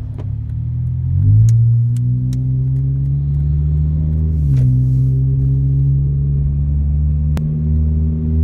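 2005 Honda Accord's 2.4-litre four-cylinder engine heard from inside the cabin as the car pulls away. The engine note rises about a second in and climbs steadily, drops at an upshift about four and a half seconds in, then pulls on again, with a few light clicks.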